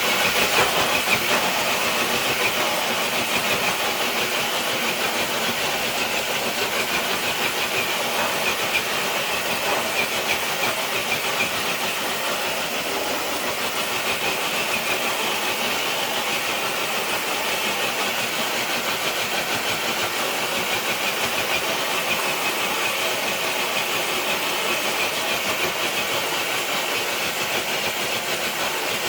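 Electric RC crawler truck's motor and geartrain whining steadily under heavy load as it drags a weighted dead sled across concrete, with the sled scraping along the surface. The sound starts suddenly and stays even.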